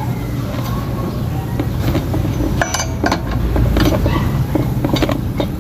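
Scattered metallic clinks and knocks of a lug wrench on a car wheel's lug nuts as they are worked loose, with a cluster of sharp clinks about halfway through, over a steady low rumble.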